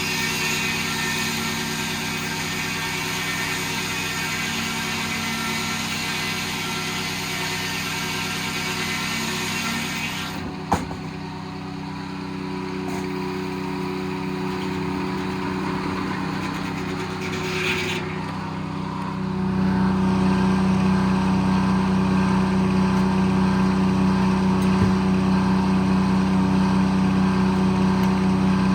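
A Detroit diesel engine powering a circle sawmill runs steadily, with a broad hiss over it for the first ten seconds or so. A single sharp knock comes about eleven seconds in. From about twenty seconds on the engine runs louder and deeper.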